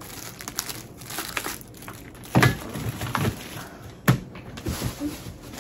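Clear plastic packaging crinkling and rustling as it is handled, with a couple of louder knocks, the sharpest about four seconds in.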